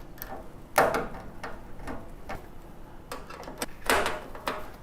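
Parts of a compost tumbler being handled during assembly: a few sharp knocks and clunks, the loudest about a second in and another just before four seconds, with lighter clicks between.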